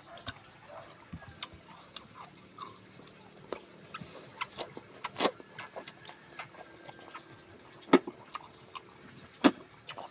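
Someone eating: scattered small clicks and smacks of chewing and handling food, with a few sharper clicks, the loudest about eight seconds in.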